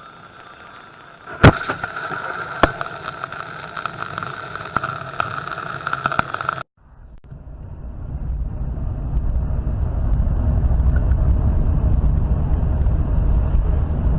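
A car crash recorded by a dashcam: a sudden loud impact about a second and a half in, a second knock a moment later, then a steady high tone with scattered knocks until the sound cuts off abruptly. After the cut comes a low, steady rumble of a vehicle driving, which builds up and holds.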